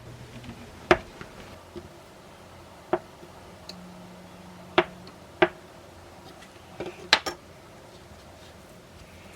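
Kitchenware being handled: dishes, glass containers and utensils knocking and clinking against a counter in several separate sharp strikes a second or two apart, with a quick cluster of clinks about seven seconds in.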